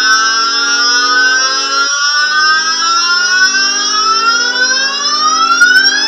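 GarageBand 'Thunderous Ambience' synth pad playing a held low chord that changes about two seconds in. Above it, a cluster of tones sweeps steadily upward and climbs faster near the end.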